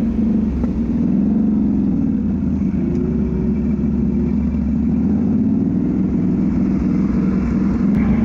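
Off-road vehicle engine running under load on a trail, its pitch wavering slightly up and down as the throttle changes.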